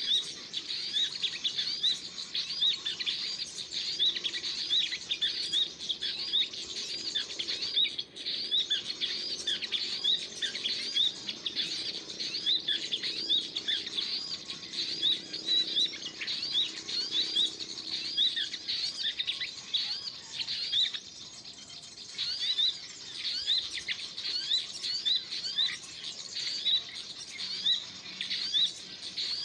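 A small songbird's high chirps repeated rapidly and steadily, two to three a second, each a quick rising note. There is a brief lull about two-thirds of the way through.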